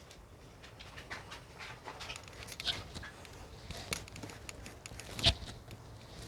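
A rubber eraser scrubbing pencil lines off paper: soft, irregular scuffs, with one louder knock about five seconds in.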